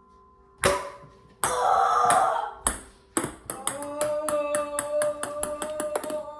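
A ping pong ball dropped down the stairs: a few knocks, then a quick run of light bounces on a hardwood floor, about five a second, that stops shortly before the end.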